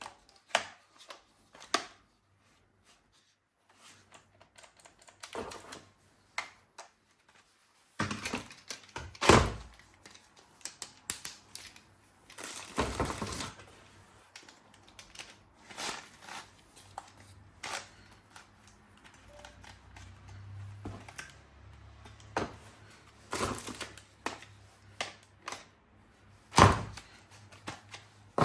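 Hard objects being handled: scattered clicks, taps and knocks at irregular intervals, with two louder knocks, about 9 and 27 seconds in, and a short scrape or rustle about 13 seconds in.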